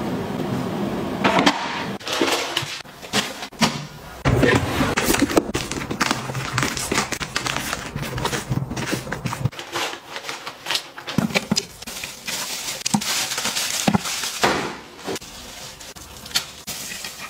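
Close rustling and crinkling of disposable facial towels and their soft plastic wrapping being handled, then a thin plastic bin bag being pulled open: an irregular string of sharp crackles and rustles.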